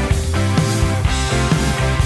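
Background music: rock with electric guitar and a steady beat.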